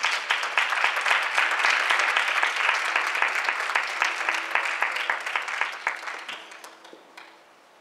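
Congregation applauding, a dense patter of many hands clapping that dies away about six to seven seconds in.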